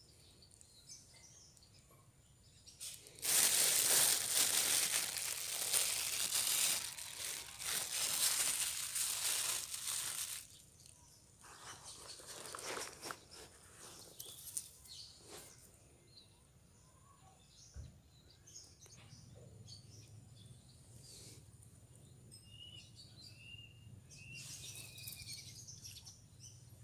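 Rustling noise for about seven seconds, then a quiet lull outdoors with scattered faint ticks and a few short bird chirps near the end.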